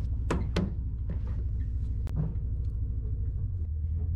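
Low, steady rumble of a pickup truck running, heard from its tailgate; the rumble shifts pitch a little past three seconds in. A few sharp clicks sound over it, twice near the start and once about two seconds in.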